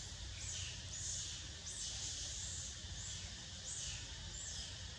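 Repeated short, high-pitched animal calls, each falling in pitch, coming evenly about one and a half times a second, over a steady low outdoor rumble.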